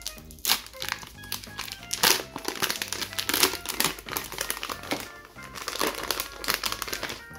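Foil and paper wrapper of a Milka chocolate bar crinkling over and over as the paper sleeve is slid off and the foil is unfolded, loudest about two seconds in. Light background music plays underneath.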